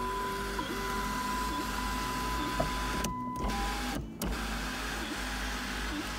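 Electric sunroof motor of a 2001 Saturn S-series running steadily, sliding the glass panel open: the sunroof working now that its motor is plugged in again.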